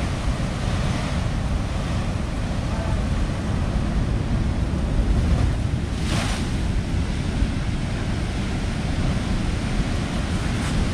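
Heavy storm surf breaking and rumbling, with wind buffeting the microphone. About six seconds in, a wave surges up through a hole in the broken seawall with a brief rushing splash.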